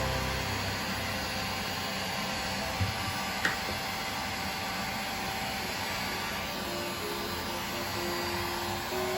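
Hair dryer blowing steadily on a kitten's wet fur, with two short knocks about three seconds in.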